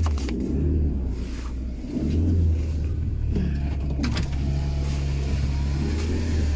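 Motor vehicle engine running steadily, a low even hum with a couple of faint clicks.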